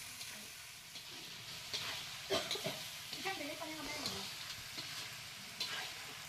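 Duck meat frying in oil in a metal karahi, sizzling steadily while a spatula stirs it, clacking and scraping against the pan now and then.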